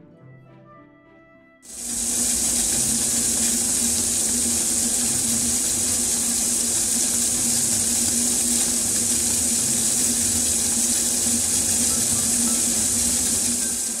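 Thick palm sugar and durian syrup boiling in a saucepan, a loud steady sizzling hiss that cuts in about two seconds in, over soft background music.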